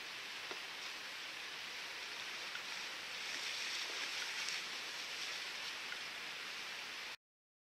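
Steady rushing hiss of water, swelling for about two seconds in the middle with the splashing of a freestyle kayak cartwheeling end over end. The sound drops out completely for under a second near the end.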